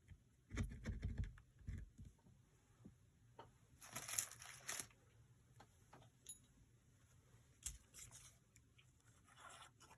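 Quiet handling of paper and craft supplies on a work table: a few soft knocks about half a second to two seconds in, a short rustle around four seconds, and scattered light clicks and taps.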